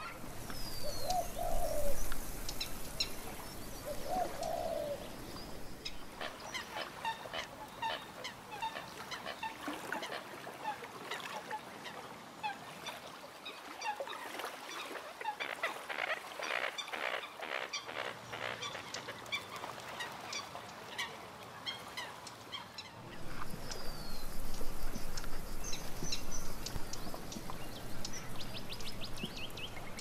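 Many waterbirds calling together in a dense chorus of short calls and chirps, with two lower drawn-out calls in the first few seconds.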